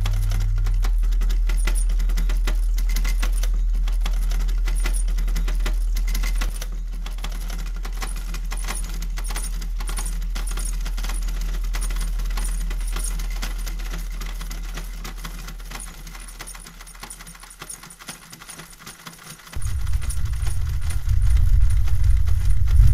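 Vintage sewing machine mechanism clicking and clattering rapidly over a low hum, which drops about six seconds in and fades away. About twenty seconds in, a loud low rumbling throb starts suddenly.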